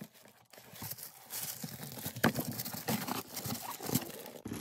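Cardboard box and paper packaging being handled and opened by hand: irregular rustling and crinkling with a few light clicks, starting about a second in.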